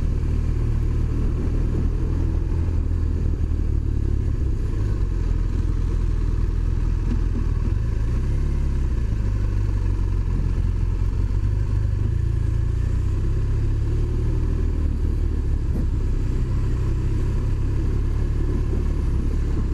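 BMW R1200RT motorcycle's boxer twin engine running as the bike is ridden slowly through city traffic: a steady low rumble.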